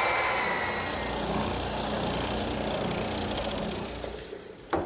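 Handheld belt sander with a 150-grit belt running and sanding cypress: a steady motor whine with a rough sanding hiss, fading out near the end. A single sharp click comes just before the end.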